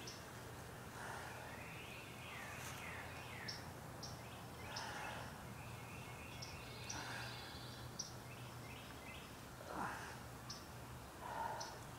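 Small birds chirping in quiet outdoor air: short high chirps about once a second, with a run of falling notes about two seconds in. A couple of soft breathy whooshes stand out near the end.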